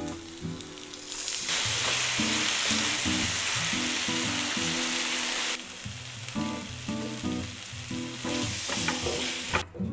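Ham, onion and green pepper sizzling in a frying pan while a spatula stirs them. About a second and a half in the sizzle turns loud as the sauce hits the hot pan, then drops back to a quieter sizzle after about four seconds. Background music plays throughout.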